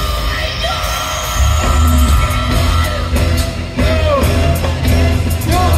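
Live reggae band playing through a large PA: a heavy bass line under electric guitar and keyboards, with a singer's voice in arching phrases over it.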